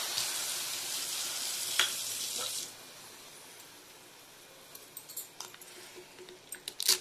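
Water just poured into a hot kadai of fried vegetables and noodles, sizzling and dying down after about two and a half seconds. Near the end, light clicks and scrapes of a slotted steel spoon against the pan.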